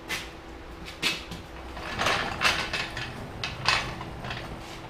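Aluminum work stand being moved and set into place on a concrete floor: a series of clanks and scrapes, loudest about two and a half seconds in and again near four seconds.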